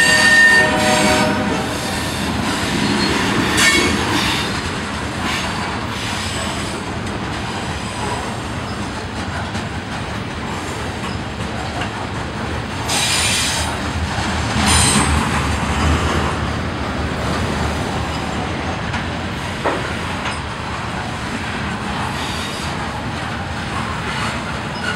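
Canadian Pacific freight train's covered hopper cars rolling past with a steady rolling noise. Brief high-pitched wheel squeals come about 13 and 15 seconds in. A horn-like pitched tone dies away in the first second and a half.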